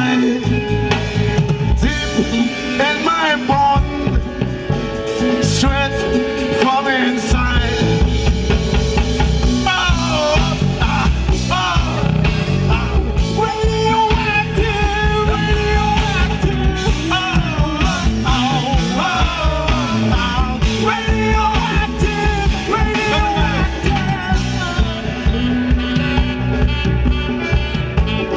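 Live band playing a song with drum kit, congas, bass guitar and saxophone, a steady beat throughout, and a voice singing over it.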